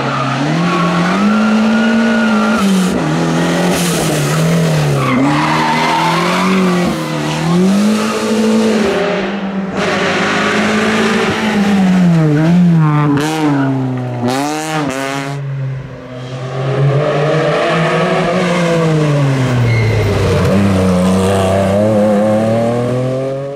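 Rally car engine on a hill climb, revving up and dropping back again and again through gear changes and corners. The sound cuts off abruptly at the very end.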